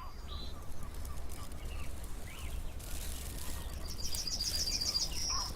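Wild birds calling: a quick string of soft chirps at first, then a high, rapid trill of about nine notes near the end. A steady low rumble runs underneath.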